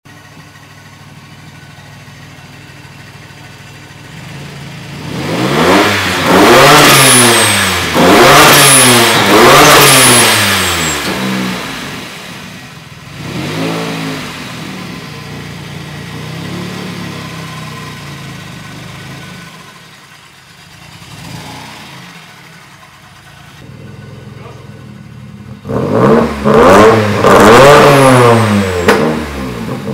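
Ford Sierra's 2.9-litre 24-valve Cosworth V6 with a Holset HX40 turbo, idling and revved hard: three big revs about five seconds in, a short one a little later, then a quick run of revs near the end. A high turbo whistle and the blow-off valve's release come as each big rev falls away.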